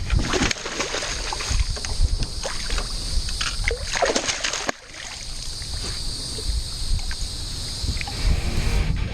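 Wind buffeting the microphone, with water splashing and scattered knocks; the sound briefly drops out near the middle.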